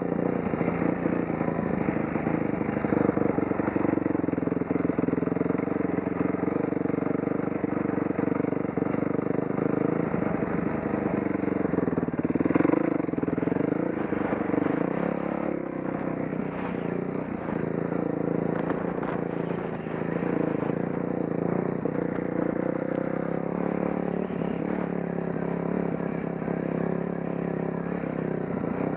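Off-road motorcycle engine running as it is ridden, its pitch rising and falling with the throttle, with a brief rev about twelve seconds in.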